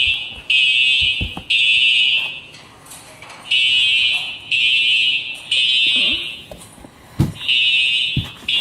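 Fire alarm sounding its evacuation signal in the temporal-three pattern: three high-pitched beeps just under a second each, a pause, then three more. A few low thumps come through underneath.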